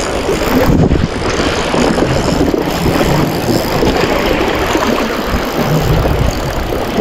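Loud, steady rushing noise with a low buffeting rumble: wind on the microphone at the shoreline.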